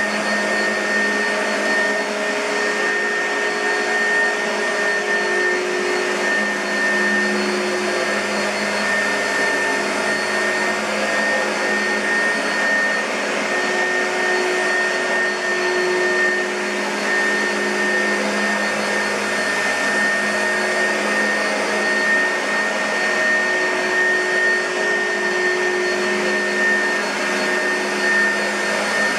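2006 Oreck XL2 bagged upright vacuum cleaner running steadily, its motor hum carrying a thin, constant high whine.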